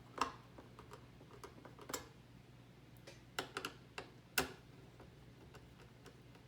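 Small irregular clicks and ticks of a screwdriver turning the mounting screws that hold a CPU cooler's bracket down, the sharpest a little after the start and about four and a half seconds in.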